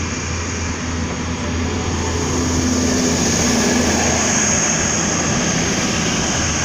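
Hunter railcar diesel multiple unit pulling away and passing close by: a steady diesel engine drone with a low hum and a rushing noise, growing louder toward the middle and holding there.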